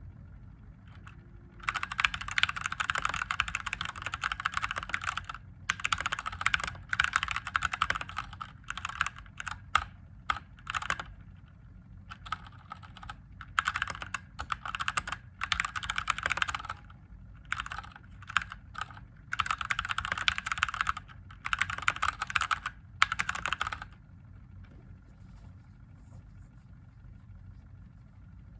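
Mechanical keyboard with Gateron Yellow linear switches being typed on in quick bursts of keystrokes broken by short pauses. The typing stops about four seconds before the end.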